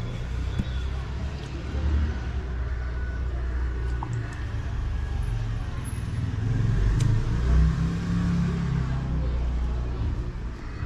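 Motor vehicle traffic passing close by: a low, steady rumble that swells louder about eight seconds in.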